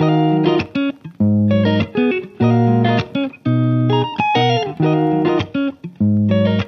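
Background music led by a plucked guitar playing short melodic phrases of quickly fading notes.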